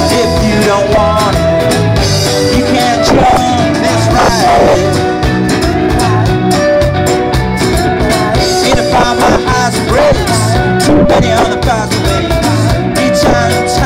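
Live band playing an upbeat song through a stage PA, with electric guitars and keyboard over a steady beat.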